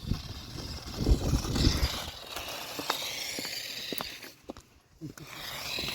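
Toy remote-control car's small electric motor whining as it drives, its pitch wavering up and down, with a low rumble about a second in and a few sharp clicks.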